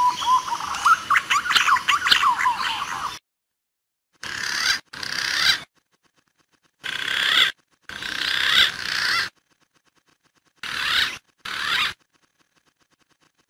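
Green pigeon (punai) calls from a bird-lure recording: warbling, gliding whistled notes. A burst of about three seconds comes first, then six shorter bursts, each cut off abruptly into complete silence.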